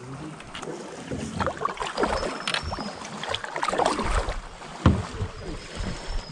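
Water splashing and sloshing around a canoe moving down a river, in irregular bursts, with one sharp knock about five seconds in.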